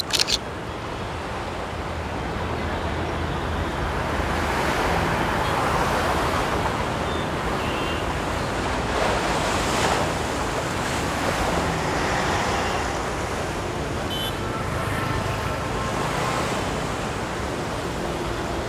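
A camera shutter clicks a couple of times at the very start. Then a steady rushing roar of outdoor city ambience, traffic and surf-like wash, builds over several seconds and stays.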